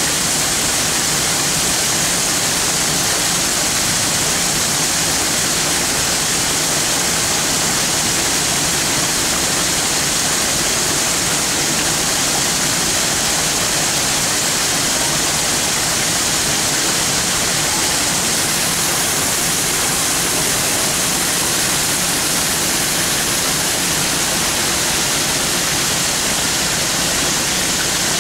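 Indoor garden waterfall, water falling over rocks and splashing into a pool with a steady, even rushing sound.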